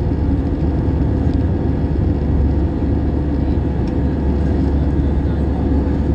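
Cabin noise of an Airbus A320 airliner in the climb after takeoff, heard from a seat over the wing: the jet engines and rushing airflow make a steady, deep rumble with a faint steady hum in it.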